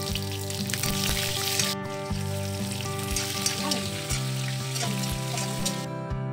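Chopped onion and green capsicum frying in hot oil in a metal kadai, with a steady sizzle that stops near the end. Background acoustic guitar music plays throughout.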